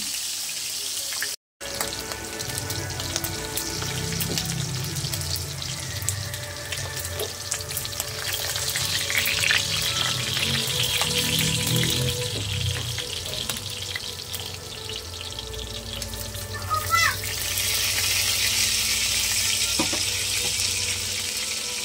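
Pork chops frying in hot oil in a nonstick pan, a steady sizzle with crackling, and the scrape and knock of a wooden spatula as the chops are lifted out. The sound cuts out completely for a moment about a second and a half in.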